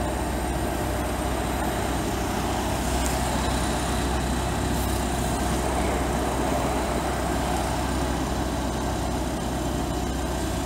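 Steady city street traffic noise with a low engine rumble.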